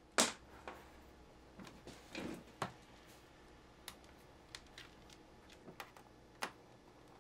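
Handling noises of a MacBook Pro laptop on a workbench mat: a sharp knock just after the start as the laptop is moved, a soft bump about two seconds in, then scattered light ticks of a small screwdriver working the bottom-case screws.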